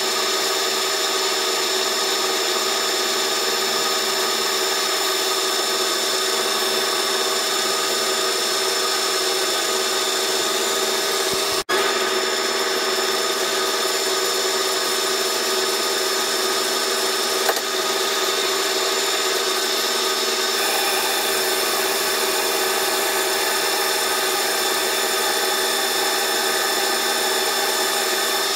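Metal lathe running steadily while turning a steel bushing, a steady machine whine with the sound of the cutting tool on the steel. The sound breaks off for an instant near the middle.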